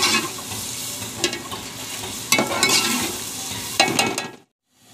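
A metal ladle stirring a sizzling tomato-onion masala in a metal pot, with a steady sizzle and several short scrapes of the ladle against the pot. The sound cuts out briefly near the end, then fades back in.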